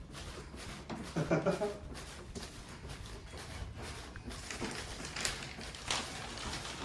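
Toddler bouncing on a small indoor trampoline: soft, irregular thumps and creaks of the mat and frame, with a brief child's vocal sound about a second in.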